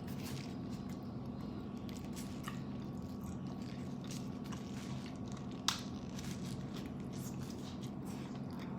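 A man chewing and biting food, with small wet mouth clicks and one sharper click about halfway through, over a steady low hum.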